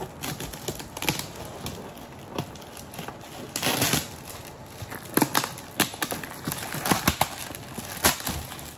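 Gift wrapping on a parcel being handled and opened by hand: irregular crinkling and rustling with scattered sharp crackles.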